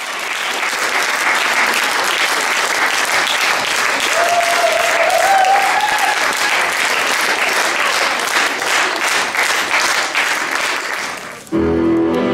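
Audience applauding steadily, with one rising cheer from a voice a few seconds in. The clapping cuts off near the end and instrumental music begins.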